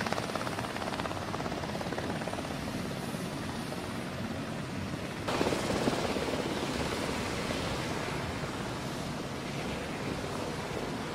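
MH-60 Seahawk helicopter hovering low over the sea, its rotor and turbine noise steady, getting louder about halfway through.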